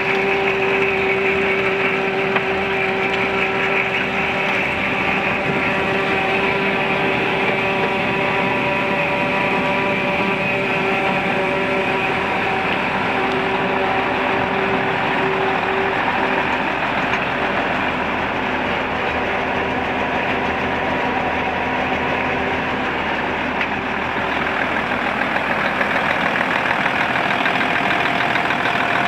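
1997 International 8200 truck's diesel engine idling steadily, its note unchanging, a little louder near the end.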